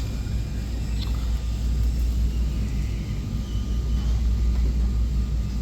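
RV galley slide-out retracting, its electric slide motor and gear running with a steady low rumble.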